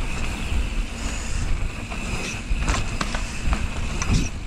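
Mountain bike rolling along a bumpy dirt trail, with wind rumbling on the camera's microphone and sharp rattles and knocks from the bike over bumps, several in the second half.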